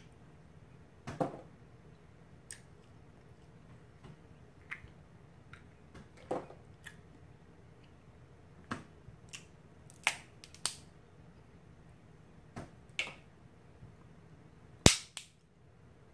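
Close-miked eating of snow crab legs and shrimp: over a dozen scattered sharp clicks, smacks and snaps of mouth and crab shell. The loudest is a sharp snap near the end.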